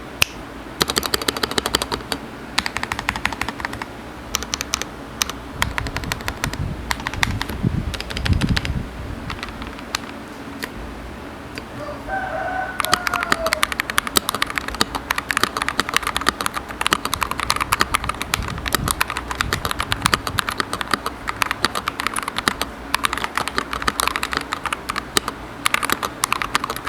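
Typing on a Lychee G96 Pro mechanical keyboard with KTT Wine switches and silicone dampening: rapid key clicks that pause briefly about halfway through and then resume. A rooster crows in the background during the pause.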